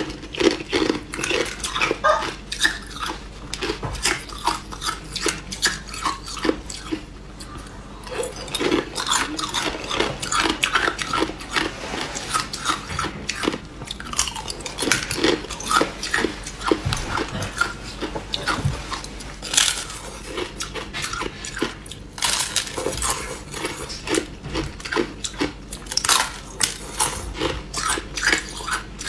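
Thin sheets of clear ice being bitten and chewed close to the microphone: a dense, uneven run of sharp crunches and crackles.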